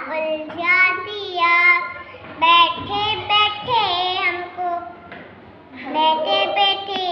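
A young child singing solo without accompaniment, with held notes that glide up and down and a short break about five seconds in.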